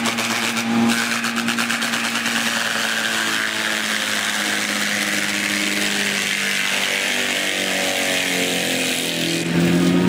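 A machine's engine running steadily, its pitch slowly sinking, then louder and rising in pitch near the end.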